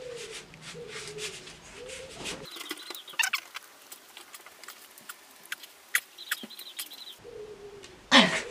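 Birds calling: a low, repeated cooing call in the first couple of seconds, then higher arching calls twice later on, with scattered light clicks. A short, sudden loud sound near the end.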